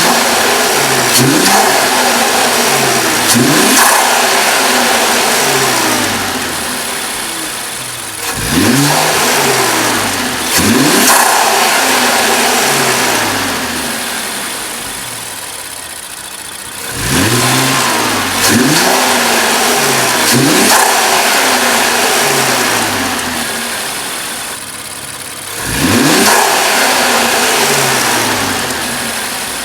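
Infiniti Q50 engine fitted with AMS cold air intakes, revved repeatedly in short blips that come in four groups. Each rev rises sharply and settles back slowly toward idle, with the intake noise to the fore.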